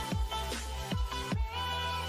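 Electronic intro music: held synth chords over a low bass, with a deep kick drum that drops sharply in pitch on each hit.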